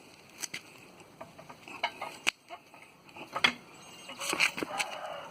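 Scattered sharp metallic clicks and knocks of hand tools working on a tire, about half a dozen over a few seconds.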